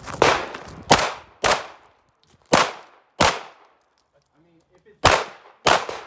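Pistol fired seven times, mostly in quick pairs about two-thirds of a second apart, with a pause of nearly two seconds before the last pair. Each shot is a sharp crack with a short echo tail.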